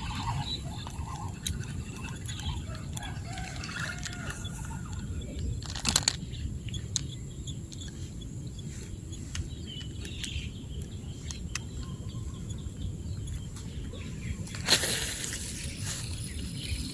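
Chickens calling faintly, with curving calls in the first few seconds, over a steady low rumble. A sharp click comes about six seconds in and a short rustle near the end.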